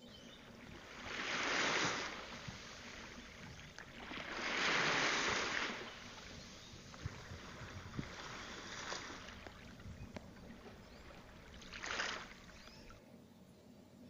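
Faint outdoor ambience with rushes of noise that swell and fade four times, like wind gusts or distant passing traffic. The two loudest come in the first half, and a short one comes near the end.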